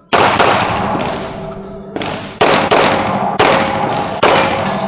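Pistol shots, about five in all, each a sharp crack with a long echoing decay. The first comes right at the start, then a gap of about two seconds, then the others follow roughly half a second to a second apart.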